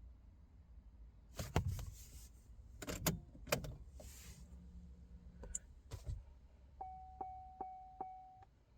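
Clicks, knocks and brief rustles of handling in the car, then near the end a steady electronic tone with evenly spaced ticks about two to three a second for under two seconds, like a car's warning chime or a programming tool's beep.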